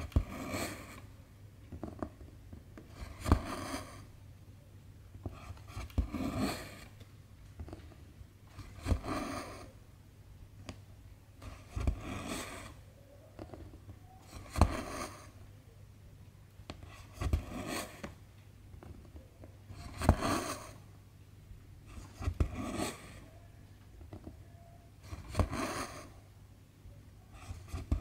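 Needle and silk thread being drawn through 11-count cross-stitch fabric, stitch after stitch: about every three seconds a sharp tick of the needle piercing the fabric, then a rasping swish as the thread is pulled through.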